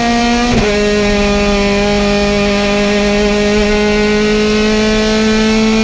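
Rally car's engine at high revs, heard from inside the cockpit, pulling hard up the road. A quick upshift about half a second in drops the pitch, and the note then climbs slowly as the car pulls in the next gear.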